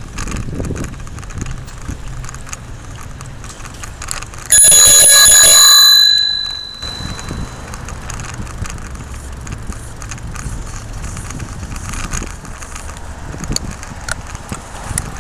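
A bicycle bell rung rapidly for about a second and a half, a bright metallic ringing that then dies away. It sounds over the steady rumble of wind and city traffic while riding.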